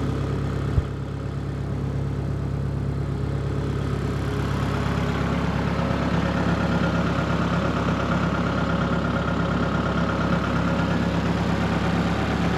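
Rice combine harvester's engine running steadily, with a sharp click about a second in; the machine's note grows a little louder and steadier from about halfway.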